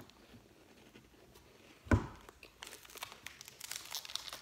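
A single thump about two seconds in, then a foil snack packet crinkling and rustling in the hands in many short crackles.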